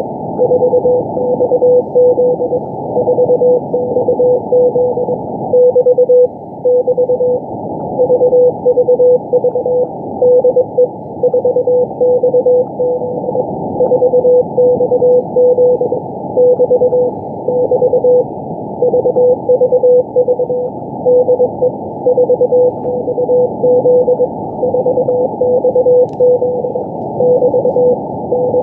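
Shortwave Morse code (CW) from the Israel Navy coast station 4XZ on 4331 kHz: a single mid-pitched tone keyed on and off in dots and dashes over steady static hiss. It is the station's repeating VVV DE 4XZ marker, a general call to all stations.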